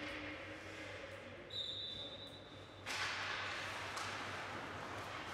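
Referee's whistle blown once, one steady high note lasting about a second and a half, then a steady hiss of rink noise.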